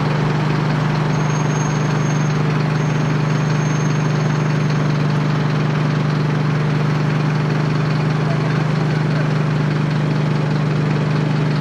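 A vehicle engine idling nearby: a steady, deep, even hum. A faint high whine runs above it from about one to five seconds in.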